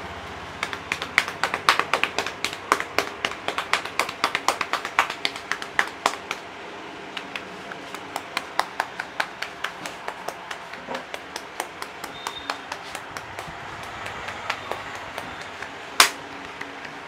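A barber's hands tapping and slapping rhythmically on a client's head during an Indian head massage. The strikes come rapidly and loud for the first six seconds, then go on lighter and evenly spaced, with one sharp, much louder strike near the end.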